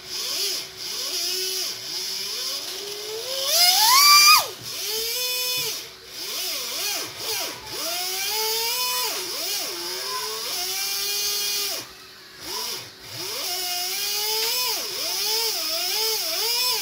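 Brushless RC car motor spinning free on the bench, driven by a 120A ESC. Its whine rises and falls with repeated throttle blips; the biggest is a steep climb about four seconds in that cuts off sharply. The owner says the boost ('turbo') is dropping in and out, which he puts down to a loose sensor wire.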